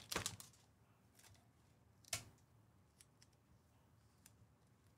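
Near silence broken by scattered faint clicks and ticks of trading cards being handled and flicked through, with one louder tap about two seconds in.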